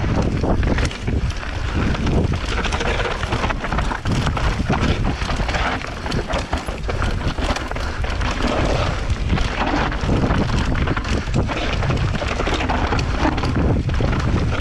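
Mountain bike descending a rough trail: a steady rush of wind and tyre noise, with frequent sharp knocks and rattles from the bike over the bumps.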